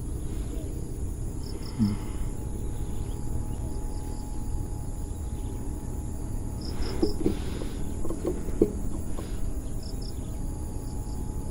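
Wind buffeting the microphone as a steady low rumble, under a steady high insect drone with short chirps in groups of three, heard three times. A few soft knocks come about two-thirds of the way in.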